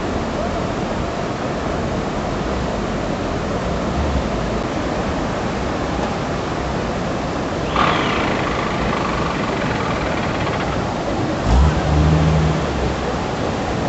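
Muddy floodwater rushing steadily in a flash flood. About eight seconds in, a higher tone rises above the rush for a few seconds, and near the end there is a low thump.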